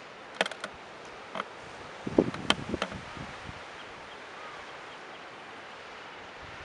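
Steady outdoor wind hiss on the microphone, with a cluster of sharp clicks and knocks from about half a second to three seconds in.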